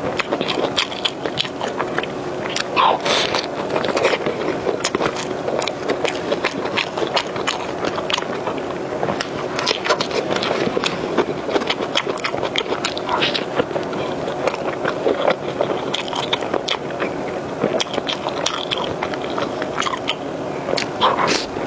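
Close-miked biting and chewing of a hamburger topped with pineapple: a dense run of wet mouth clicks and smacks, with a steady hum underneath.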